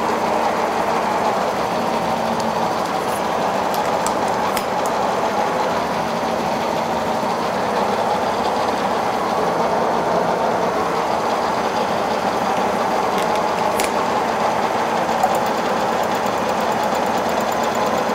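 Kearney & Trecker No. 2 milling machine running steadily with a large face mill spinning, for a light pass on a stainless steel part. The sound starts just as the machine gets going.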